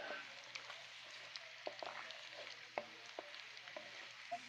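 Garlic, ginger and chicken frying in oil in a karahi, a steady sizzle, with a spoon clinking against the pan several times as it is stirred.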